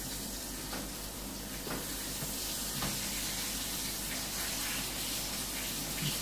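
Burger patties frying in a pan: a steady sizzle, with a few light taps of the spatula against the pan.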